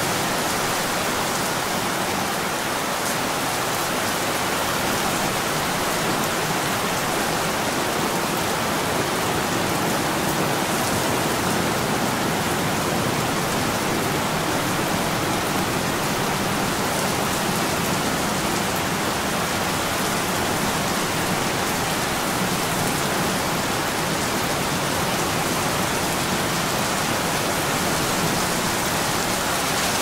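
Steady rain pouring down, an even, unbroken hiss of drops falling on ground and foliage.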